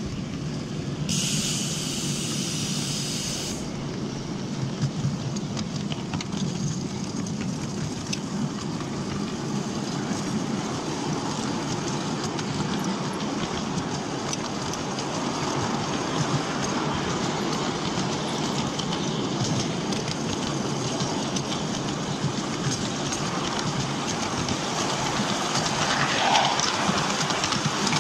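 Miniature railway train running along its track, heard from on board: a steady rumble and clatter of small wheels on the rails. A high hiss lasts about two seconds, starting about a second in, and a brief squeal comes near the end.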